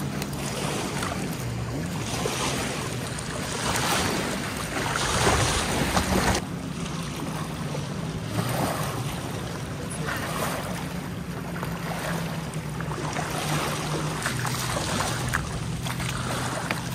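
Wind gusting on the microphone, swelling a few seconds in, over a steady low drone.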